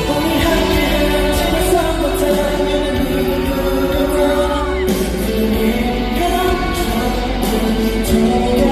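Live K-pop performance: male vocals singing over loud pop backing music, recorded from the audience in a large arena.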